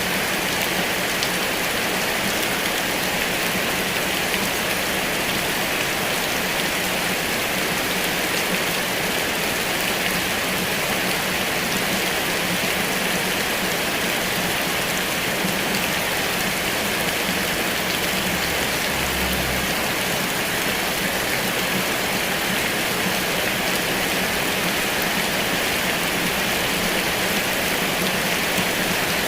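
Heavy rain falling steadily, a dense, even patter of drops on surfaces.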